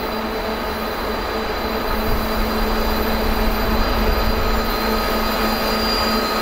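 2TE116 twin-section diesel locomotive hauling a freight train up a grade, its diesel engines working under load. A deep steady rumble carries a steady high whine, growing louder from about two seconds in as the locomotive draws near.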